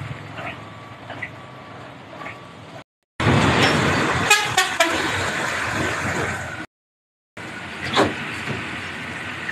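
Trucks and motorbikes passing in slow roadside traffic, broken twice by short silent gaps. In the loudest middle stretch a vehicle horn sounds briefly, about four seconds in.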